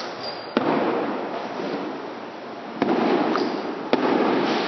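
Aerial firework shells bursting: three sharp bangs, about half a second in, near three seconds and about four seconds in, each trailing off over a second or more.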